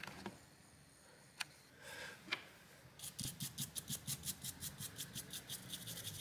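Toothbrush bristles scrubbing quickly back and forth over a laptop's bare GTX 1050 graphics-chip die, clearing the last of the old thermal paste. The even strokes, about seven a second, start about three seconds in, after a couple of light clicks.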